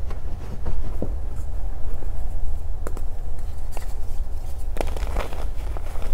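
Pieces of reformed gym chalk being squeezed and crushed in the hands: a dull low rumble of pressing with scattered small crunches, the sharpest about five seconds in.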